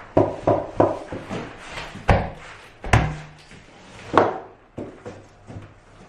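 Click-lock cork floor planks being knocked and pressed together to engage their locking edges: a quick run of three knocks, then louder single knocks about a second apart.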